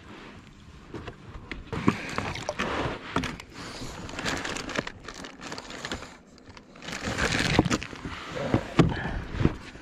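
Fishing gear being handled on a kayak while a bottle of fish scent attractant is fetched: irregular plastic rustling, scraping and clicks, with a short lull about six seconds in.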